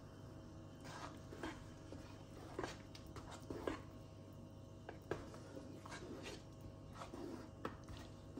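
Wooden spoon stirring thick lentil soup in a metal pot: irregular wet slurps and light knocks or scrapes of the spoon against the pot, about a dozen in all, over a faint steady hum.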